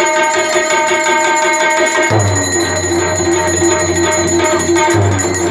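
Tabla solo with harmonium accompaniment: fast tabla strokes over the harmonium's steady, sustained melody line (lehra). A deep bass tone joins about two seconds in.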